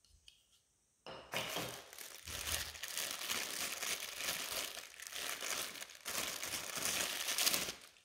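Clear plastic wrapping crinkling and rustling as a small vacuum brush attachment is unwrapped from its bag by hand, starting about a second in and stopping just before the end.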